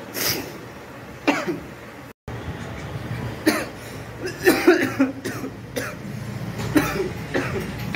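A man coughing in repeated short fits, his throat irritated by the pungent fumes of chili, salt and cumin fried together on a griddle.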